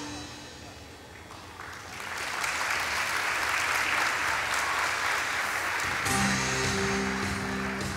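The music stops and an audience claps, the applause building about two seconds in and holding steady; the next tune starts up under the clapping near the end.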